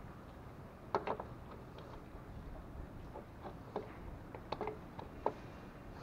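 Plastic funnel being handled and fitted into an engine's oil filler neck: scattered light clicks and taps, a pair about a second in and several more in the last two seconds.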